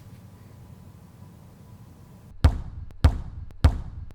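Footsteps on a hard floor. They start about two and a half seconds in and fall evenly at a walking pace, about one step every 0.6 seconds, after a quiet stretch with a faint hum.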